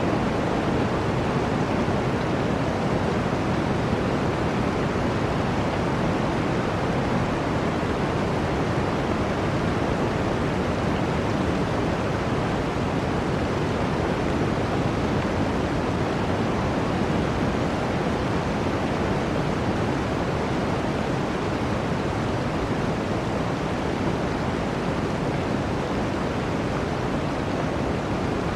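Flowing water rushing steadily, an even unbroken hiss with no single splashes standing out.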